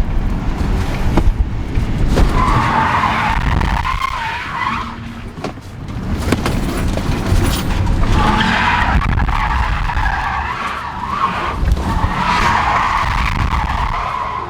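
Car doing donuts: tyres squealing in long wavering stretches, from about two seconds in and again from about eight seconds, over the engine's steady low rumble.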